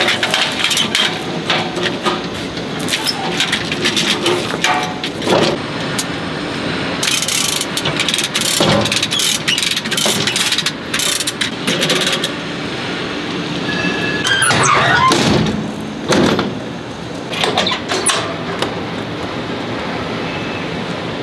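Lever chain hoist being ratcheted to tension a tie-down chain: many rapid metallic clicks and chain rattles, with a brief wavering squeal about fifteen seconds in.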